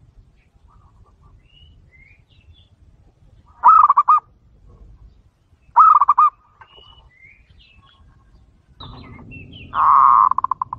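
Zebra dove (perkutut) cooing: two short bursts of quick repeated coo notes, then near the end a longer coo that breaks into a fast rolling run of notes and fades. Other small birds chirp faintly in the background.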